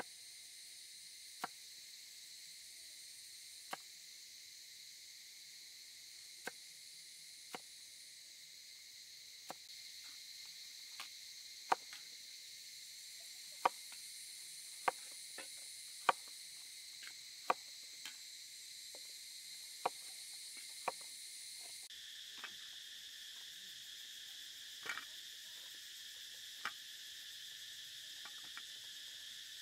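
A cleaver chopping carrots and potatoes on a wooden board: sharp single knocks every second or two, over a steady high chorus of insects that shifts in pitch about two-thirds of the way through.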